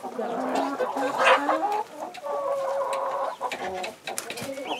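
Domestic chickens clucking, with a longer held call about halfway through.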